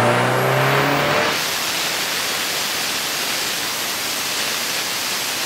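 Turbocharged four-cylinder engine of a Mitsubishi Evo 9 running on a hub dyno, its note rising slowly with a high whine climbing alongside. About a second in, this gives way to a steady, loud rushing noise.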